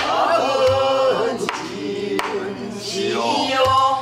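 Pansori-style singing of a danga line, with long, bending, ornamented notes. A few strokes on a buk barrel drum keep the rhythm underneath.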